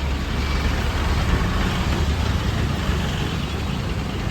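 Steady roadside traffic noise: a motor vehicle's engine running close by with a continuous low rumble under a general street hiss.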